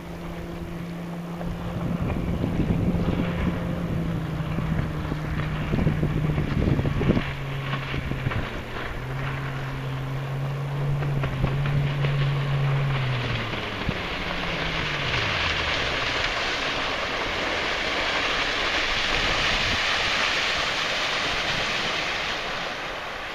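Mercury Verado 250 four-stroke outboard on a Lund fishing boat running on plane across open water, a steady drone that dips and recovers briefly, then drops in pitch and fades about thirteen to sixteen seconds in. Wind buffets the microphone early on, and a rushing hiss builds through the second half as the boat comes closer.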